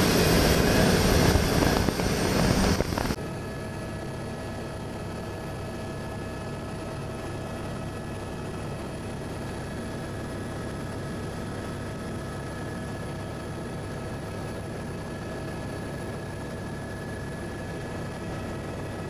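A jet boat running flat out, heard from on board, cuts off suddenly about three seconds in. A steady helicopter drone follows, with several constant whining tones over it.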